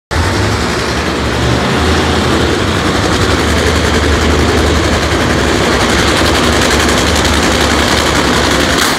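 Supercharged nitromethane Funny Car V8 engines running at the starting line: a loud, dense, crackling rumble over a steady low drone. It changes and drops slightly at the very end.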